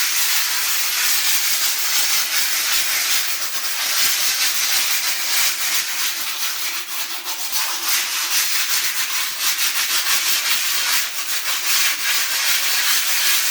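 Continuous scratchy rubbing and scraping across the stove's rough, drying mortar finish, made up of many quick irregular strokes.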